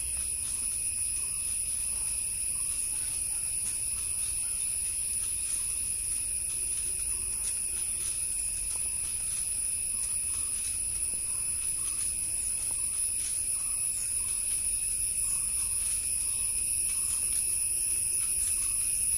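A steady, high-pitched insect chorus drones on without a break.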